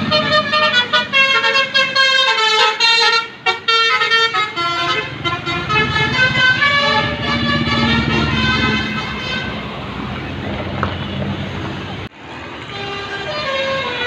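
Bus telolet basuri musical air horn playing a tune of quick, stepped notes, with the bus's engine rumbling as it comes by. The sound breaks off suddenly about twelve seconds in, and horn notes start up again.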